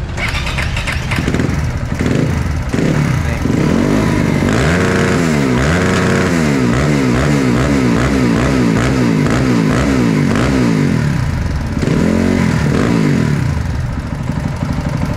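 Supermoto motorcycle engine revved against its newly enabled CDI rev limiter, the revs bouncing up and down about twice a second for several seconds, then one more short rev before it drops back toward idle near the end.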